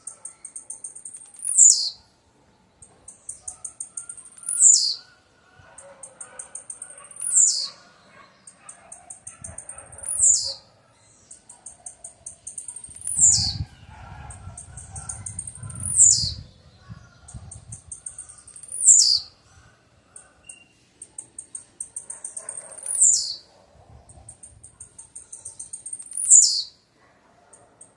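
Blue-black grassquit (tiziu) singing its short song over and over, about every three seconds: a quick run of high ticks ending in a sharp downward slur.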